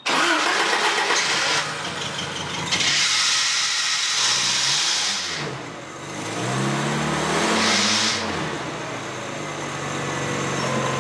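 1986 Isuzu P'up's carbureted engine with a freshly rebuilt Weber 32/36 DGAV carburetor, its float now right way up, starting suddenly. It is revved up and down a few times amid loud bursts of hiss, then settles into a steady idle for the last couple of seconds.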